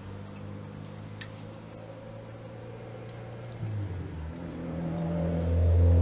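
Hallicrafters S-120 receiver's speaker putting out a steady mains hum with faint hiss. A little over halfway through the hum shifts and grows louder toward the end. The owner blames the set's poor performance on a bad filter capacitor, a common cause of such hum.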